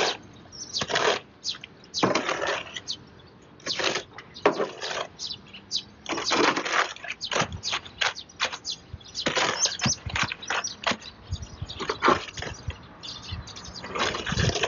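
Steel shovel scraping across a concrete slab and turning a pile of wet concrete, in irregular scrapes and slops about once a second.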